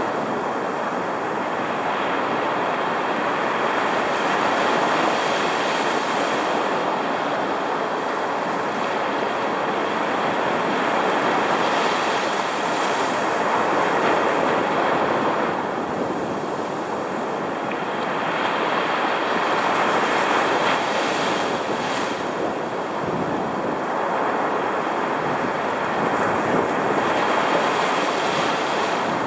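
Heavy storm surf breaking and washing up the sand at the water's edge: a continuous roar of churning water that swells and eases every several seconds as the waves come in.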